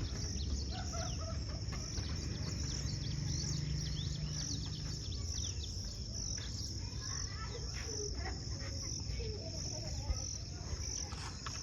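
Rural outdoor ambience: a steady, pulsing high insect trill, with many short bird chirps and chickens clucking.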